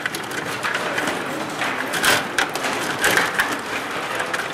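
Stiga Play Off table hockey game in play: rapid, irregular clicking and clattering of the control rods and plastic players knocking the puck around, with a louder clack about two seconds in.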